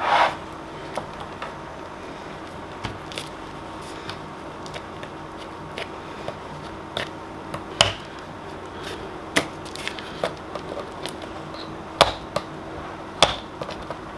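Scattered light clicks and taps as the metal retaining tabs on the back of a picture frame are pressed down over the cardboard backing, with three sharper snaps in the second half.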